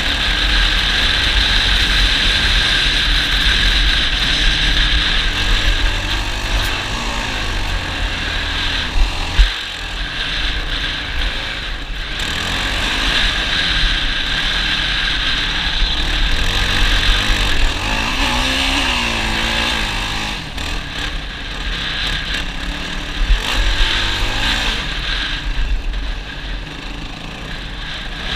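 ATV engine running under way, its pitch wavering up and down with the throttle, with a sharp knock about nine and a half seconds in.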